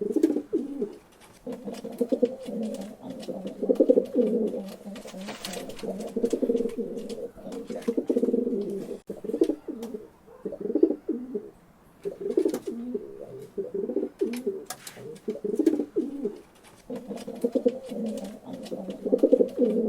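Pigeons cooing over and over in overlapping low phrases, with short pauses, and scattered light clicks and taps among them.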